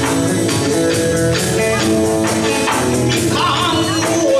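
Live Kawachi ondo folk music: band accompaniment holding steady tones over a regular beat. A male singer's wavering, ornamented voice comes in near the end.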